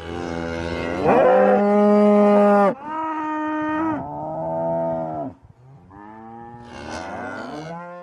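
Cattle mooing: about four long calls one after another, the first bending up in pitch about a second in.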